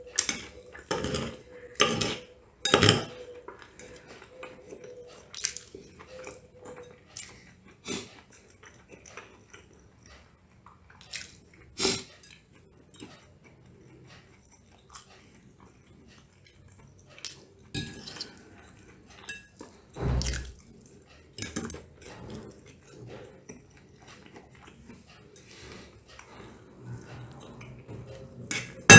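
Metal fork and knife clinking and scraping on a ceramic plate as food is cut and picked up, in irregular short clinks. About twenty seconds in there is a heavier low thump.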